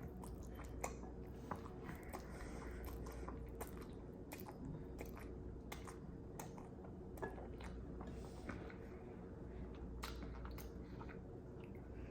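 A person quietly chewing a mouthful of instant ramen noodles, with scattered soft wet clicks and smacks of the mouth.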